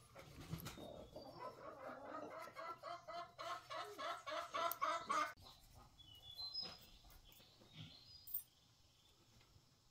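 Chicken clucking in a quick, repeated run of notes that grows louder over about four seconds and then stops suddenly, followed by a few faint high bird chirps.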